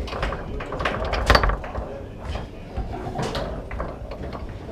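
Foosball play: rods sliding and clacking as the players swing the men and strike the ball, an irregular string of hard knocks with a sharp, louder one about a second in.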